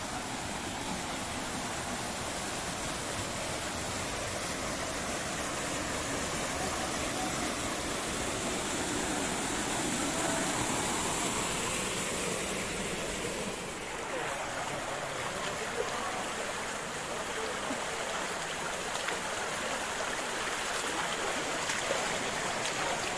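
Small river flowing: a steady rush of water, dipping briefly about two-thirds of the way through.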